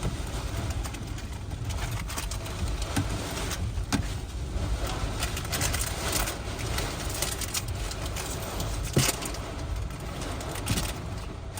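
Hurricane eyewall wind blowing hard in gusts, with a few sharp knocks, the loudest about nine seconds in.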